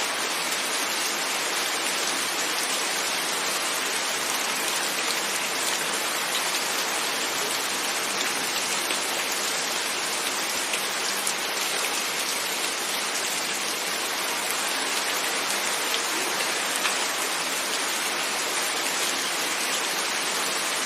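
Steady rain falling on window glass: an even hiss with faint scattered drop ticks.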